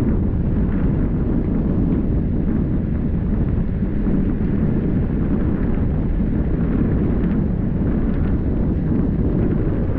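Wind buffeting the microphone over the steady low rumble of a moving vehicle on the road.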